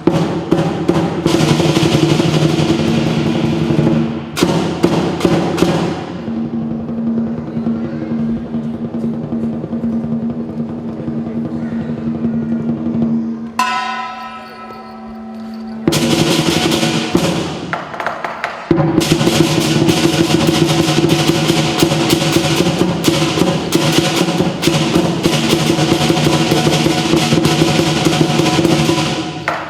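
Southern lion dance percussion: the big lion drum beaten in rapid rolls with clashing cymbals and a gong ringing. It thins out in the middle and comes back in full for the last third.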